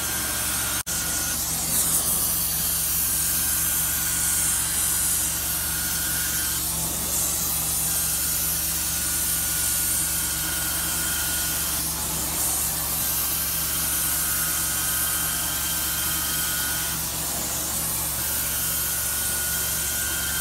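Carpet cleaning extraction wand spraying and vacuuming a carpet: a steady hiss and suction roar over a machine hum, with a high whistling tone that breaks off for a moment about every four to five seconds.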